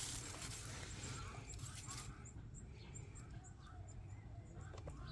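Birds chirping faintly in the background, short repeated chirps, over a low steady hum.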